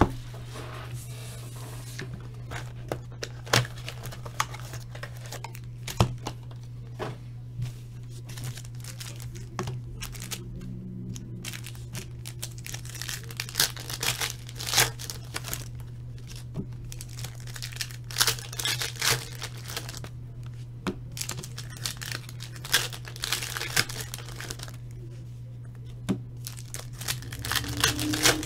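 Foil trading-card pack wrappers being torn open and crinkled, in repeated short tearing and rustling bursts with the odd tap of cards on the table, over a steady low hum.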